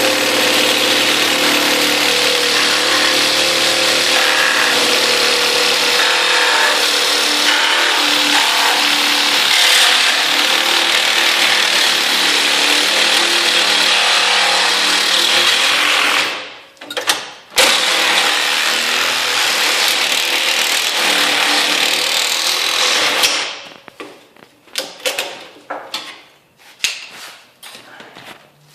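Ridgid Gen5x cordless reciprocating saw with its permanent-magnet motor, cutting through a 2x4 with embedded nails. It runs steadily for about sixteen seconds, stops briefly with a short blip, then cuts again for about six more seconds. Scattered knocks and clatter follow near the end.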